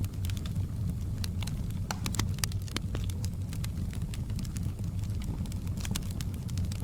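Wood fire crackling in a fireplace: irregular sharp pops and crackles over a low, steady rumble of the flames.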